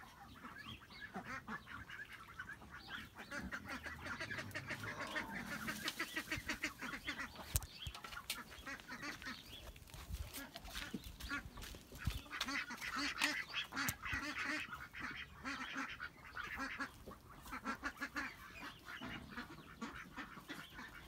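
Farm poultry calling over and over, a steady chorus of honk- and quack-like calls.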